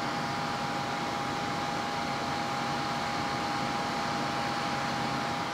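Desktop PC fans through the case's mesh side panel: the AMD A10-5800K's stock CPU cooler fan and a blue-lit intake case fan running under full Prime95 load. A steady airy whoosh with a thin, constant whine.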